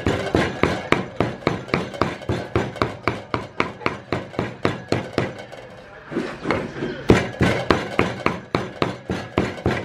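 Steel cleaver chopping raw pork and garlic into mince on a thick wooden chopping block: rapid, even knocks at about four strokes a second, briefly lighter around the middle.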